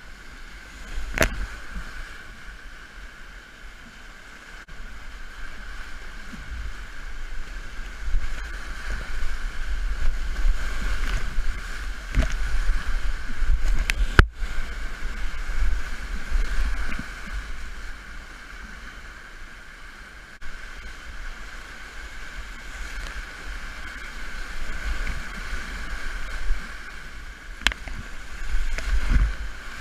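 Whitewater rapids rushing and churning around a kayak, heard from on the boat, with water splashing over the deck as it runs the rapid. A few sharp knocks stand out: one about a second in, one near the middle and one near the end.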